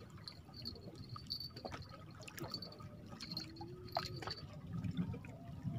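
Sea water lapping and dribbling against the rocks of a breakwater at the waterline, with small splashes and drips.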